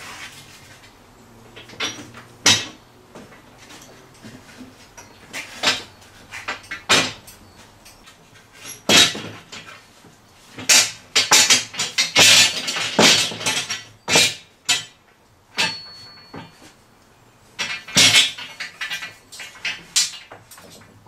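Metal bar clamps and wooden scaffold boards knocking and clattering as they are handled and set in place for a glue-up: a string of sharp knocks and clicks, busiest around the middle, with a brief thin squeak a little after.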